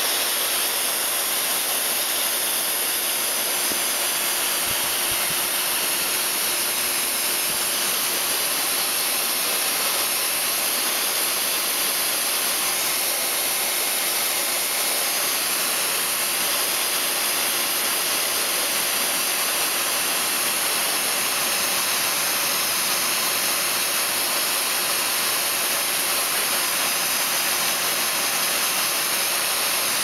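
High-velocity pet dryer blowing a strong, steady rush of air into an Old English Sheepdog's long coat, with a faint motor hum underneath.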